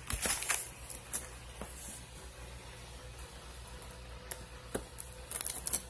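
Close-up handling noise: rustling and rubbing with a few sharp clicks, loudest about half a second in and again near the end, over a faint steady low hum.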